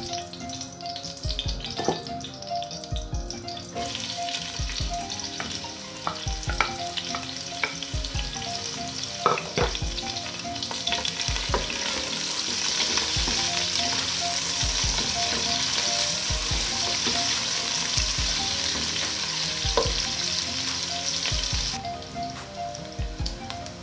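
Whole spices frying in hot oil in a stainless steel pot, then sliced onions going in a few seconds in, after which the sizzle grows much stronger as they are stirred with a spatula. The sizzle weakens again near the end.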